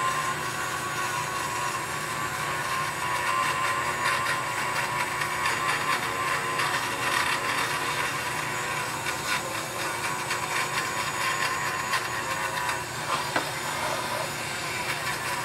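Dremel rotary tool spinning a small mop, whining steadily as it works into carved grooves in wood to clear out the fuzz; the pitch wavers slightly as it is pressed in.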